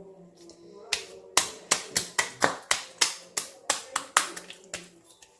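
Sticky homemade slime being squeezed and pulled in the hands, giving a quick run of sharp clicks and pops, about four a second. The slime is still tacky, not yet rested enough.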